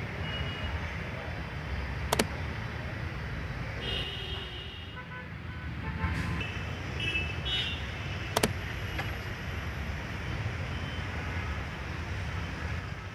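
Street traffic noise: a steady low rumble of passing vehicles, with a few brief horn toots about four and seven seconds in. Two sharp clicks cut through it, about two seconds in and again near eight seconds.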